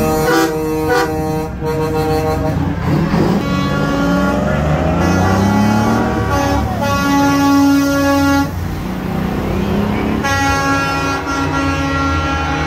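Semi-truck air horns blowing long held blasts, several sounding together at times, over the low rumble of diesel engines pulling past. The horns cut off about eight seconds in and start again a couple of seconds later.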